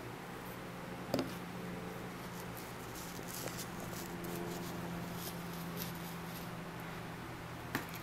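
Quiet handling of a felt bullseye and glue bottle over a cardboard sheet: a sharp tap about a second in and another near the end, with soft rustles of felt and cardboard in between. A steady low hum runs underneath.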